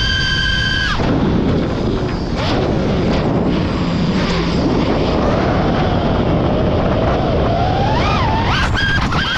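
FPV quadcopter's brushless motors whining high and steady for about a second, then a dense rushing noise with the motor pitch wavering low as the quad dives toward the treetops. Near the end the whine rises sharply again with a burst of throttle.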